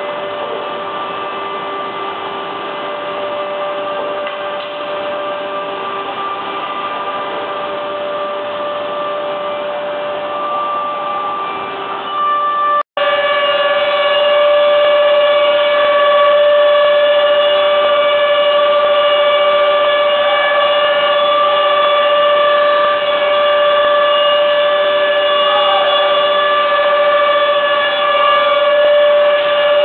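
Woodworking machinery for plank gluing running with a steady whine made of several fixed tones over a mechanical hum. It cuts out for an instant about 13 seconds in and comes back a little louder.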